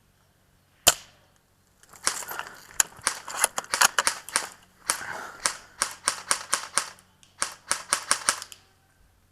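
A single sharp snap about a second in, like an airsoft spring sniper rifle shot, then several seconds of dense, irregular crackling and rustling: twigs and brush snapping and scraping as the player pushes through undergrowth.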